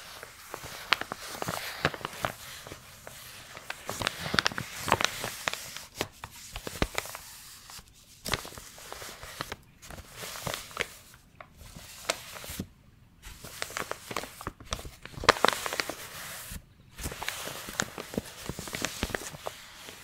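Brown paper envelope being crinkled and rustled by gloved hands, in irregular crackling bursts broken by several brief pauses.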